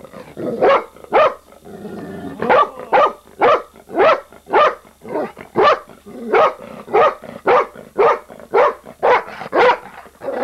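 A long-haired reddish-golden dog barking over and over in short, sharp barks, about two a second, with a brief pause about two seconds in.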